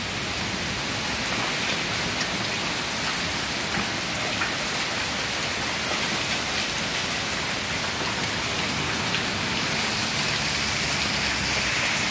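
Heavy thunderstorm downpour: a steady, dense hiss of rain falling on the ground and roof, with a few faint ticks scattered through it.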